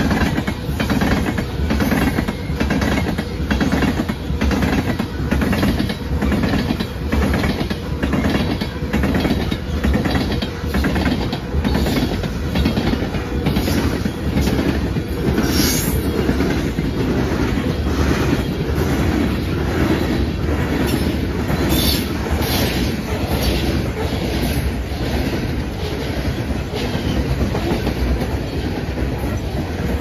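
Loaded coal cars of a freight train rolling past close by, their wheels clacking over the rail joints in a steady rhythm of about two clacks a second over a low rumble. Brief high wheel squeals come through about halfway and again about two-thirds of the way in.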